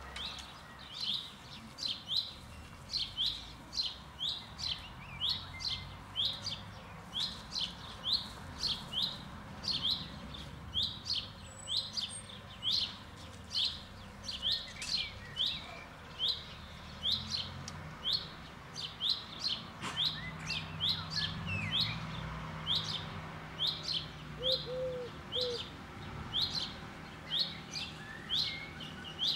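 A small songbird chirping over and over, about two short high chirps a second.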